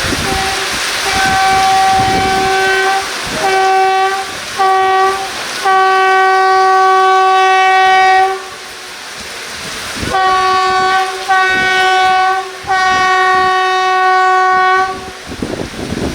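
Indian Railways WAP-7 electric locomotive's horn blowing repeatedly as the express is halted by an alarm-chain pull: a long blast, two short ones and another long one, then about a second and a half later three blasts in quick succession. Under the horn runs the rumble of the rolling train.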